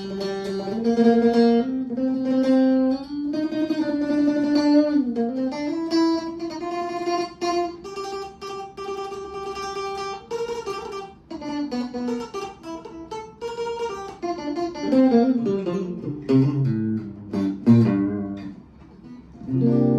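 Strat-style electric guitar with three single-coil pickups, played clean on the middle-and-neck pickup setting: a single-note melody of held notes, some sliding in pitch, turning to quicker, lower notes after about fifteen seconds.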